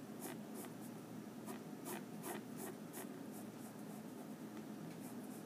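Pencil drawing short vertical lines on paper: a run of quick, faint scratchy strokes, with a pause of about a second and a half before a few more strokes near the end.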